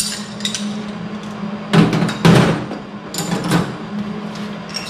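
Metal tools and a steel plate knocking and clinking as they are handled and set down on a concrete floor: two louder knocks about two seconds in, then a few lighter clinks. A steady low hum runs underneath.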